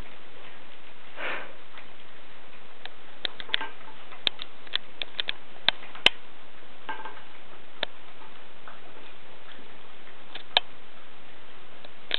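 West Highland terrier puppy eating: irregular sharp clicks and crunches of chewing, thickest between about three and eight seconds in, with a sniff about a second in.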